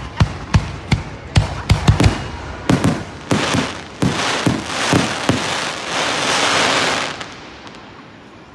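Aerial fireworks shells bursting in quick succession, several sharp bangs a second for about three seconds. Then a dense, continuous rush of sound for about four seconds that dies away about seven seconds in.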